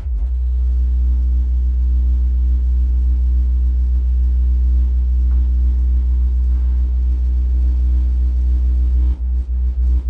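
Two 10-inch MTX Jackhammer subwoofers playing a long, sustained, very deep bass note at high volume. About nine seconds in, the bass breaks into quick pulses.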